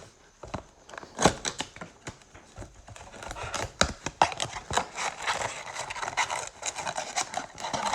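Trading cards and pack wrappers being handled: a run of sharp clicks and crinkling rustle, busier in the second half.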